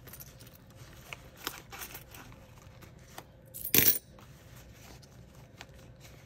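A few loose coins, shaken out of a binder wallet, clatter into a cup already holding coins, in one brief loud jingle about four seconds in. Light rustling and small clicks of the coins being handled come before it.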